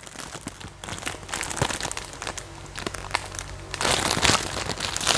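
Gift wrapping and packaging crinkling and rustling as a present is handled, with scattered small clicks. It grows louder about four seconds in.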